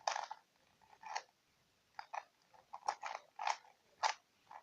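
4x4 Rubik's cube layers being turned by hand: a series of short plastic clacks and scrapes, one burst per turn, about eight turns spread unevenly across a few seconds.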